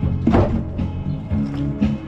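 Background music: held bass notes changing on a steady beat.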